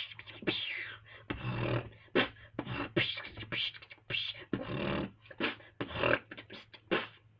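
Beatboxing: a fast run of cough-bass hits mixed with vocal DJ-scratch sounds, short bursts with some sweeping down in pitch.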